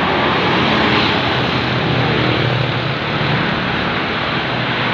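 Intercity bus coming down the hill and passing close by: a loud, steady rush of engine and tyre noise.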